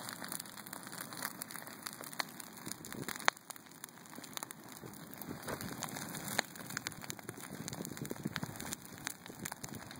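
Large bonfire of split logs and branches burning hard, crackling steadily with scattered sharp pops. The loudest pop comes a little after three seconds in, and another strong one a little after six seconds.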